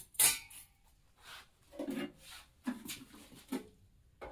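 Metal exhaust tubing and tools being handled on a workbench: about half a dozen short scrapes and knocks, the loudest just after the start.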